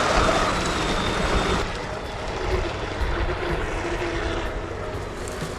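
Brushless electric motor of an RC catamaran speedboat running on a 3S battery, whining at speed. The pitch rises at the start, then the sound eases and grows quieter about one and a half seconds in, settling on a steady lower whine.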